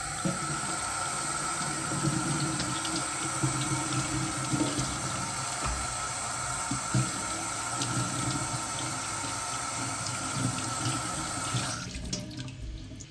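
Water running steadily from a tap and splashing, cut off about twelve seconds in.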